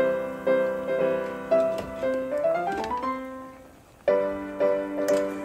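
Background piano music: a melody of held notes that fades out, then a new phrase begins about four seconds in.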